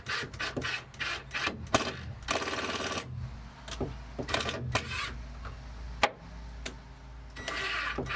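Cordless drill-driver driving screws into pine wall cleats in two short runs, with knocks and clicks of wood and screws being handled between them and one sharp knock about six seconds in.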